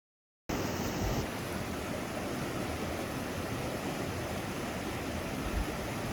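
Steady rushing of flowing river water that starts abruptly about half a second in, with wind buffeting the microphone in low thumps.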